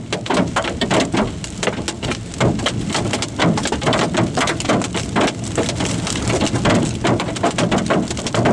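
Hailstones pelting a moving car's roof and windshield, heard from inside the cabin: a dense, irregular clatter of hard hits over the wash of rain. The hail is hard enough to damage the windshield.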